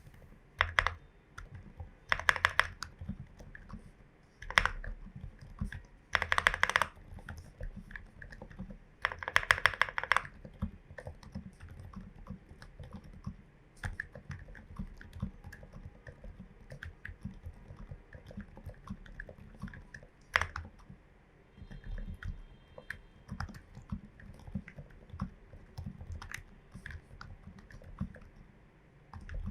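Typing on a Glorious GMMK Pro mechanical keyboard with lubed, filmed switches, MT3 keycaps and a tape mod. There are three quick flurries of keystrokes in the first ten seconds, then slower, scattered single keystrokes.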